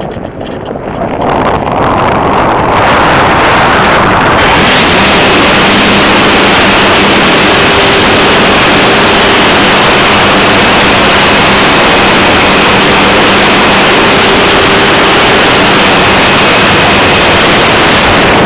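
Model airplane in flight heard from its onboard camera: a loud, steady rush of wind and propeller noise with a faint steady motor hum underneath. It swells to full strength about four seconds in and eases off at the very end.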